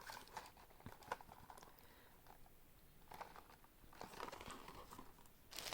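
Faint rustling and light clicks of packaging and small items being handled, close to silence, growing a little louder near the end.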